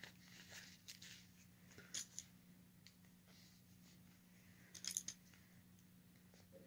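Faint handling sounds over a low steady hum: a few short crackles and clicks, a small cluster about two seconds in and the loudest about five seconds in.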